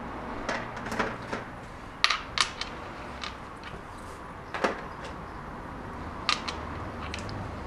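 Sporadic light clicks and knocks of metal motorcycle parts being handled: about nine sharp taps spread unevenly, around the exhaust silencer and the rear footpeg bracket mounts.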